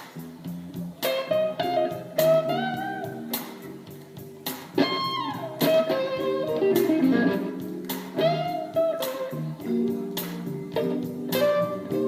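A blues recording played back through a hi-fi amplifier: an electric guitar solos with bent notes over bass and drums, with no vocal.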